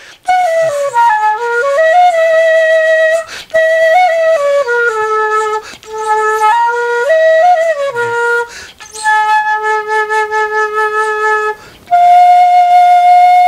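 Danso, the Korean end-blown notched flute, played in a short demonstration phrase. Its notes slide up and down between held pitches, with brief breath breaks between phrases. A pulsing low note is held in the second half, and a long steady higher note is held near the end.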